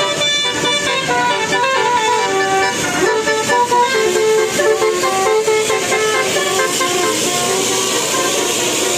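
Indonesian bus 'telolet basuri' musical horn playing a quick tune of stepped notes, several notes sounding together; the tune thins out near the end.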